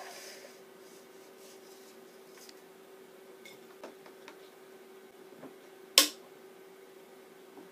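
Faint light taps as fries are picked out of a Tefal ActiFry air fryer's bowl, then about six seconds in one sharp, loud click as the bowl's handle is gripped.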